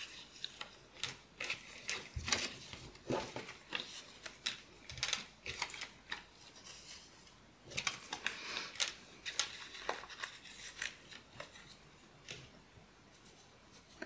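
Paper stamps rustling and clear plastic pocket sleeves crinkling as they are handled and slid into place, with small irregular taps and clicks. The rustling is busiest about eight seconds in.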